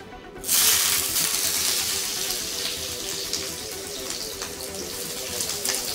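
A kitchen tap turned on about half a second in, water then running steadily into a sink.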